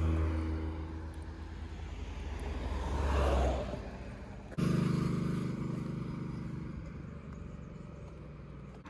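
Cars passing on an open road: one swells to a peak about three seconds in and then draws away. About halfway through another engine hum cuts in suddenly and fades out gradually.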